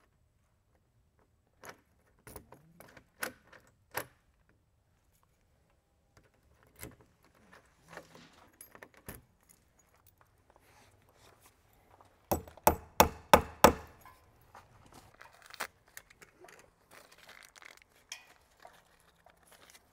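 Small door hardware being handled, giving scattered light clicks and knocks, with a quick run of about six sharp clicks some twelve seconds in as the loudest sounds. A small plastic parts bag crinkles near the end.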